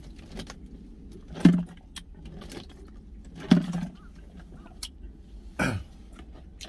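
A person drinking water from a plastic bottle: two loud gulps about two seconds apart, then a shorter sound near the end.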